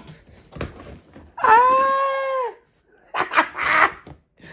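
A dog howling once: a long call held for about a second that drops off at its end, followed by a few short breathy sounds.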